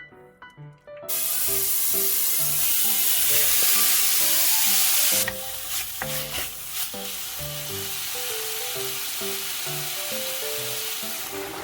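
Food sizzling loudly in a hot pan. It starts suddenly about a second in and drops to a quieter sizzle after about four seconds, with a few clatters of stirring. A soft melodic background tune plays throughout.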